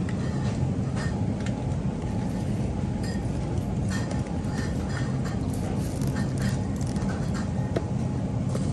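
Steady low rumble of store background noise, with scattered light clicks and crackles of plastic clamshell bakery containers being picked up and handled.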